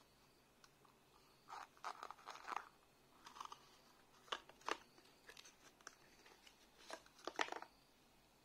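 Paper and cardboard packaging being handled: short rustles and scrapes with a few sharp clicks as a paper cylinder is pulled apart and the wireless charger is taken out. The loudest click comes near the end.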